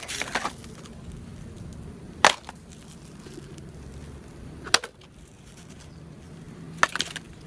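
Several sharp knocks a couple of seconds apart: mud-covered plastic toy vehicles being picked out of a basket and set down on a tray.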